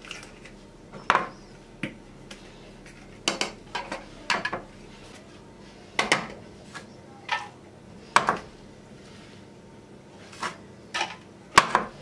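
An aluminium foil cup and a glass ramekin knocked lightly together and on a wooden board: about ten sharp taps and clinks, unevenly spaced, a few with a short ring, as loose cocoa and powdered sugar is shaken out of the cup.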